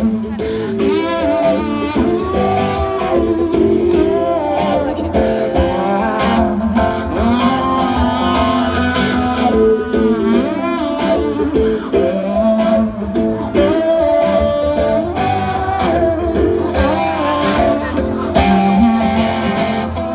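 Live acoustic guitar song: strummed acoustic guitar with a wordless sung melody over it.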